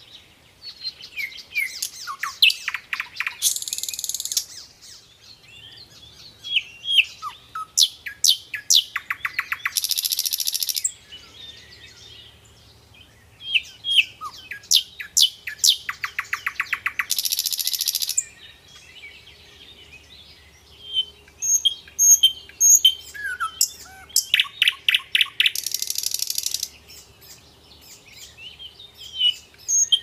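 Common nightingale singing: a varied run of whistled notes, quick repeated note series and fast stuttering trills, broken by four loud, dense rattling passages.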